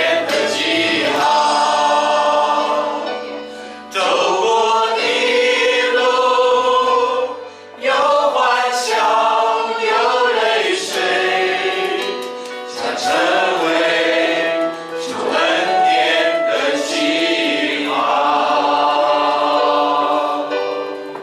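A small worship team of women and men singing a Chinese hymn together in long held phrases, with short breaks for breath between lines.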